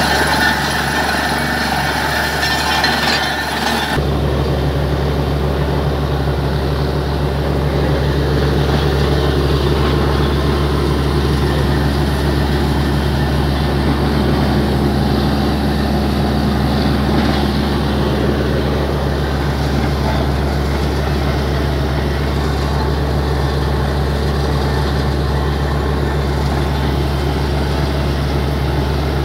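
Air compressor engine running steadily while it blows out a borewell, with water and slurry rushing from the well. About four seconds in, a hissing, rattling layer drops away, leaving a steady low drone.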